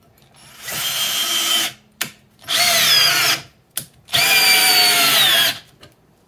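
WORKPRO 12V cordless drill driving a long bolt into a block of wood in three short runs, its motor whine falling in pitch during the last two.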